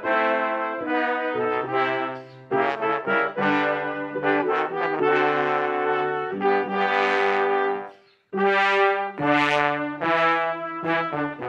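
Two trumpets and two trombones with piano, playing a piece of music in close harmony. The ensemble breaks off for an instant about eight seconds in, then comes back in together.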